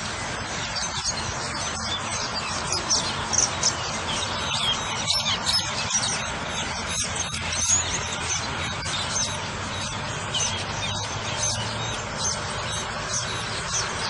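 Cucak keling (Asian glossy starling) calling: a fast, continuous stream of short, high chirps and squeaks over a steady hiss.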